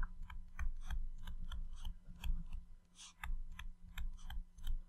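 Stylus tapping and scratching on a tablet's glass screen while handwriting: a quick, irregular run of small ticks with a few short scratchy strokes between them.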